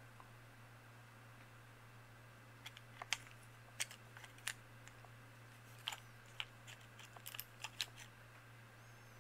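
Faint, scattered clicks and light knocks of the opened plastic derailleur housing and its loose parts being turned over in the hands, thickest near the end, over a steady low hum.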